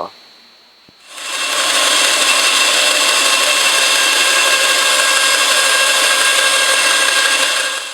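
Bandsaw cutting a piece of plexiglass: a loud, steady run of cutting noise with a faint whine that starts about a second in.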